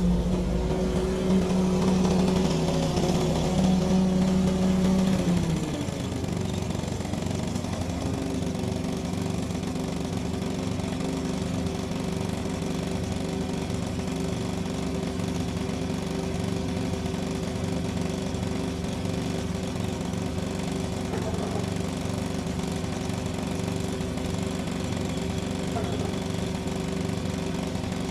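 Lawn mower engine running steadily; about five seconds in its speed and loudness drop, and it runs on at a lower, even drone.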